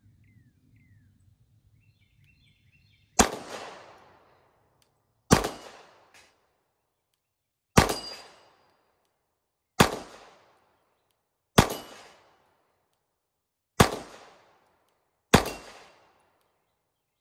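Seven single shots from a Walther 9mm pistol, fired slowly about two seconds apart, each trailing off in a short echo.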